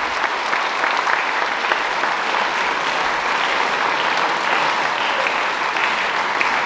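A large audience applauding: many people clapping steadily together.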